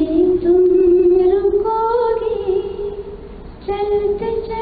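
A woman singing a slow melody solo, holding long notes that slide up and down in pitch, with a brief pause for breath about three and a half seconds in.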